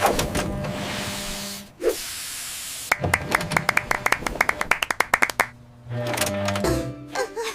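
Cartoon sound effects over light background music: a whoosh at the start and a hiss, then a fast run of clicks, about nine a second, for about two and a half seconds before the music comes back.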